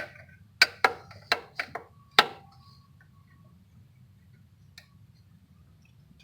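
Sharp metallic clicks of a hand wrench working on an alternator mounting bolt: about seven irregular clicks in the first two and a half seconds, then one faint click near five seconds.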